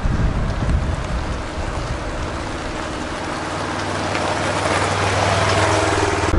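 Polaris Ranger side-by-side UTV driving past on a gravel driveway, its engine running and its tyres crunching over the gravel, growing louder as it draws close and goes by.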